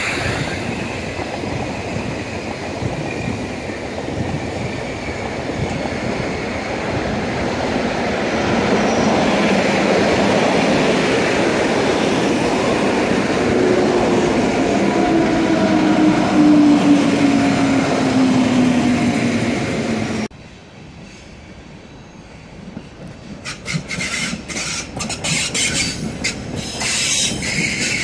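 Rhaetian Railway electric trains passing close by: a steady rumble of wheels on rail, with a falling whine from the passing electric locomotive's drive in the later part. After an abrupt cut, a slower train rolls past with sharp clicks of wheels over rail joints near the end.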